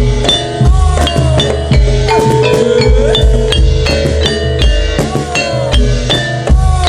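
Kuda lumping accompaniment music: an ensemble of struck metal tuned percussion and drums, with many short ringing notes over deep drum beats that come roughly once a second.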